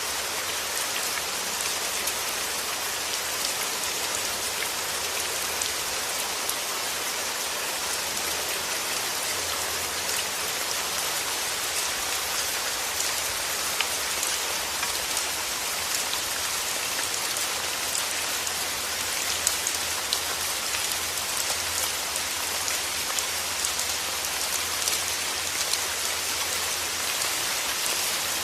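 Steady rain falling, a dense even hiss with many small drop ticks and occasional louder single drops.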